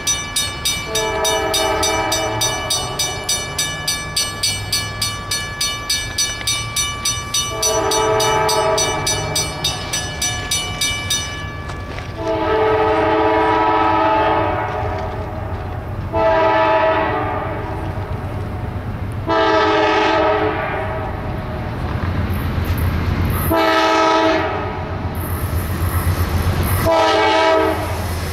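An approaching CSX freight's locomotive horn sounds a chord in about seven blasts, some long and some short, over a grade-crossing bell that rings rapidly and stops about eleven seconds in. The low rumble of the locomotive grows louder near the end as the train draws close.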